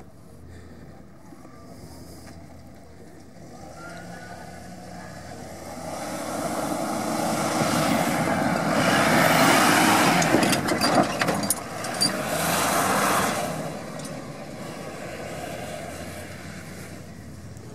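Jeep Wrangler Rubicon driving on a dirt track: its engine and tyres grow louder over several seconds, are loudest for a few seconds past the middle with a scatter of sharp clicks, then die away as it drives off.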